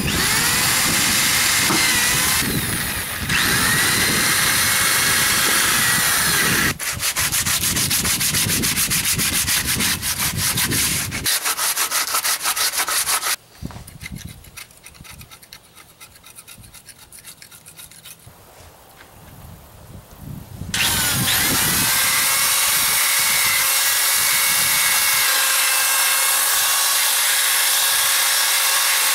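Corded electric drill running under load, its motor pitch dipping and rising as it works first at a hole in a fiberglass boat transom and later spins a wire wheel against the crusted outboard mounting bracket. For several seconds midway the drill stops and a hand scraper scrapes at the crust, much quieter.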